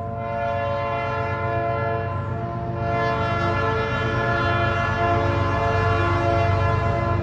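Diesel freight locomotive horn sounding a steady chord as the train approaches unseen, over a low engine rumble that grows steadily louder.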